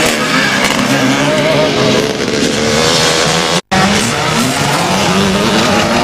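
Motocross dirt bike engines revving hard, their pitch rising and falling as the bikes ride the track. The sound cuts out for an instant a little past halfway.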